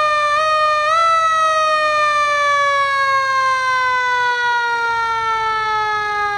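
Fire truck siren sounding as the truck approaches. Its pitch bumps up slightly about a second in, then falls slowly and steadily.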